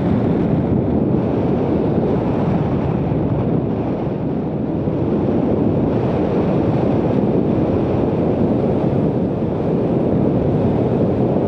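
Loud, steady rush of wind on the microphone from the airflow of a paraglider climbing under tow.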